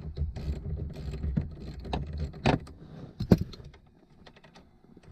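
Irregular metallic clicks from a 10 mm socket wrench working the nut on the negative battery cable clamp, with two sharper clicks about halfway through, then fainter ticks as the cable end is handled.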